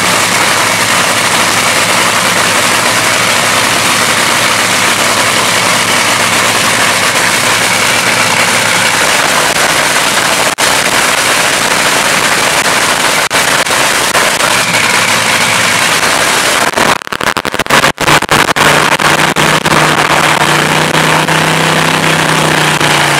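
A drag-racing dragster's engine running in a stationary pit warm-up, loud and steady. About 17 seconds in it gets louder and rougher for a couple of seconds, then settles to a steadier note.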